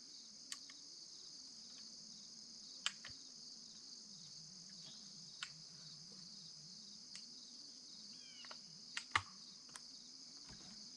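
Faint, steady chorus of crickets trilling, with a few scattered small clicks and knocks. The sharpest click comes about three seconds in, and two more come close together near the end.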